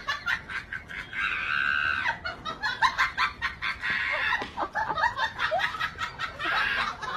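Chickens squawking and clucking in many short, repeated calls, with a few longer cries.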